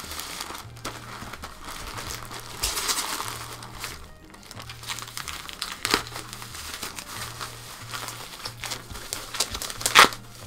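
Plastic packaging crinkling and rustling as a boxed vinyl figure is pulled out of a plastic mailing bag and its bubble wrap is handled, with a couple of sharp crackles, the loudest near the end. Background music plays underneath.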